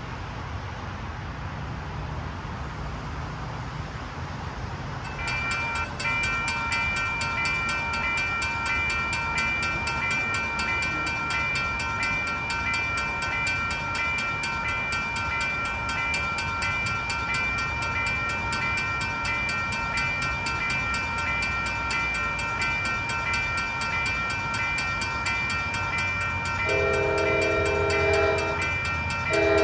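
Railroad crossing signal bells start ringing about five seconds in and keep up a steady, rapid ringing while the gates come down. Near the end the approaching Amtrak train's horn sounds a multi-note chord: one long blast, then a second blast starting just at the end.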